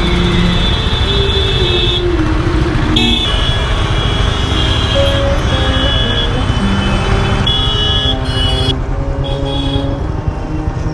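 Royal Enfield motorcycle ridden slowly through crowded city traffic: constant engine and wind rumble, with vehicle horns honking again and again around it.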